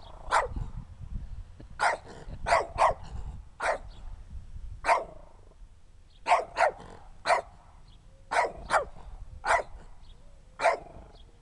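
Small dog barking repeatedly: about a dozen short, sharp barks at uneven intervals, sometimes two in quick succession.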